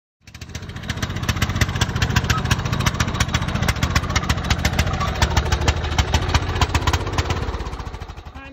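Riding lawn mower's engine running steadily, building up over the first second and tapering off near the end.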